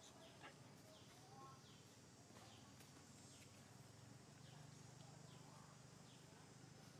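Near silence: faint outdoor ambience with a few short, high, falling chirps and a low steady hum that strengthens slightly about four seconds in.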